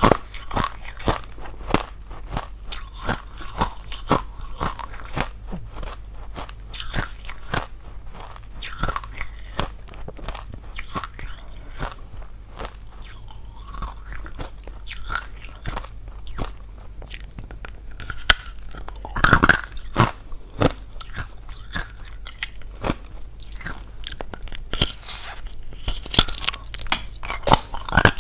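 Hollow ice being bitten and chewed: a steady run of sharp, brittle crunches, louder and denser about two-thirds of the way through and again near the end.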